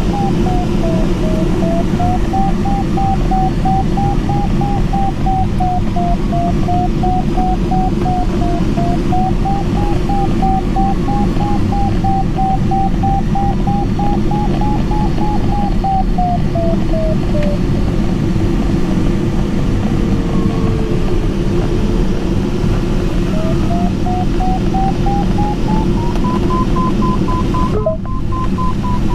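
Steady rush of airflow around a Mini Nimbus HS7 glider's cockpit, with the audio variometer's single tone wandering up and down in pitch as it signals climb and sink. Past the middle the tone falls low and faint, then it rises again near the end, with a brief break just before the close.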